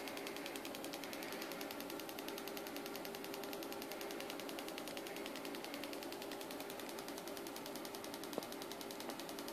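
A spark plug arcing as an ignition coil fires it over and over through an MJ10012 Darlington ignitor, a fast, even ticking of many sparks a second. A steady low hum runs underneath, and one sharper click comes near the end.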